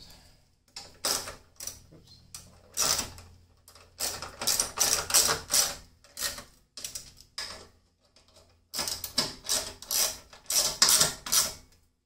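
A hand tool clicking in several quick bursts as the hood lock's mounting hardware is tightened at the top of the grille.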